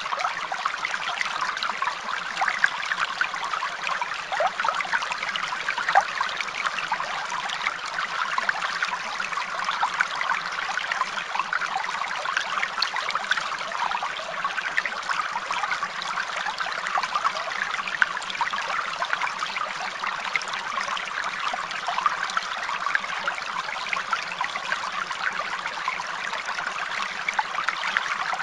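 Steady running water, trickling without change or pause.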